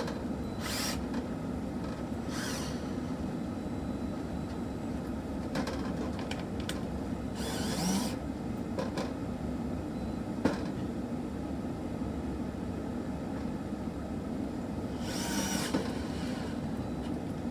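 Handling noises from mounting an alarm control panel on plywood: a few brief scrapes and knocks and one sharp click about ten seconds in, over a steady background hum.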